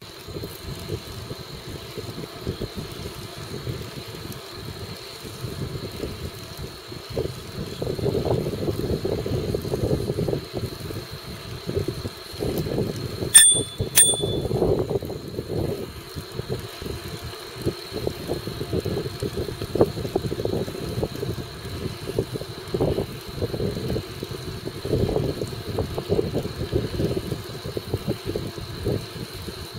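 Wind buffeting the microphone and rolling noise from a moving bicycle, rising and falling unevenly. About halfway through, a bicycle bell rings twice in quick succession, half a second apart, with a short bright ring.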